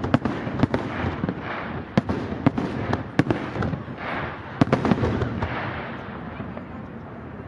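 Aerial fireworks display: sharp shell bursts going off in quick, irregular succession over a continuous rumble, thinning out and getting quieter near the end.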